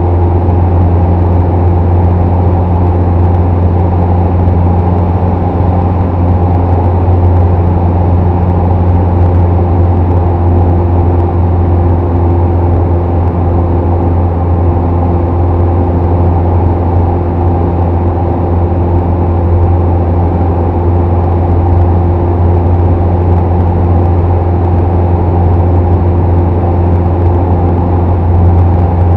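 Single-engine propeller airplane's engine and propeller running steadily in flight, heard from inside the cockpit: a loud, even low hum with a few steady higher tones over it.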